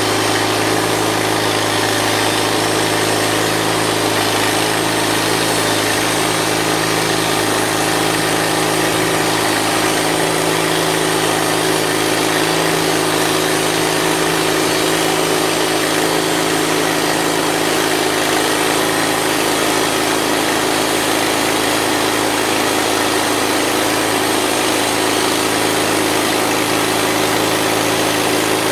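Mighty Mite portable bandsaw mill running steadily, its engine under constant load as the band blade cuts through a yellow cedar log.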